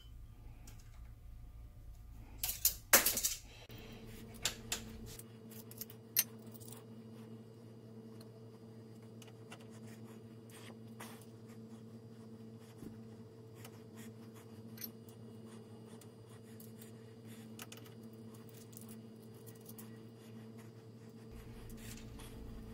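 Small metal clinks and light taps of hand tools, a feeler gauge and a wrench, on a Sheldon lathe's cross-slide screw fittings while the screw gap is being set. A cluster of sharper clinks comes about three seconds in, then single clicks and scattered faint ticks.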